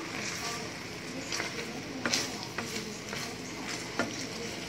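Chicken pieces bubbling and sizzling in teriyaki sauce in a pan: a steady hiss with a few sharp pops, the loudest about two seconds in.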